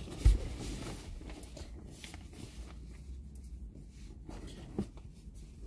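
Rummaging through a fabric bag: a dull thump a moment after the start, then faint rustling and handling, and a light knock near the end.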